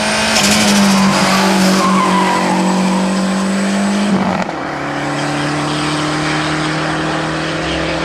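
Lancia Delta Integrale rally car's turbocharged four-cylinder engine running hard under load through a bend, with its tyres squealing briefly in the first couple of seconds. About four seconds in the engine note drops in pitch as the car passes and draws away, then holds steady.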